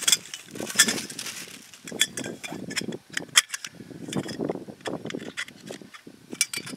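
Metal tubular legs of a tripod grill clinking and knocking against each other as they are handled and fitted together, a scatter of sharp clinks at uneven intervals.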